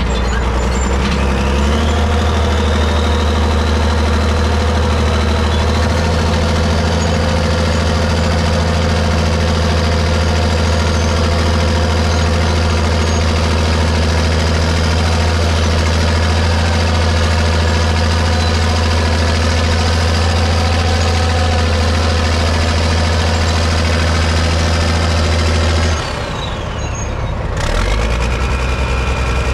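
Caterpillar 977K track loader's diesel engine running steadily as the machine drives, its pitch climbing over the first few seconds as it revs up. Near the end the sound drops suddenly and a different, steadier engine hum takes over.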